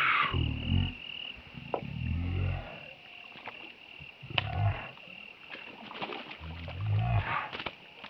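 Hooked snakeskin gourami thrashing and splashing at the water's surface as it is pulled from the swamp on a pole line, with a few sharp splashes and several low rumbles.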